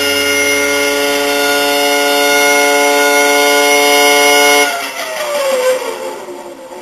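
A loud, steady drone of several pitches at once holds for nearly five seconds, then slides down in pitch and fades.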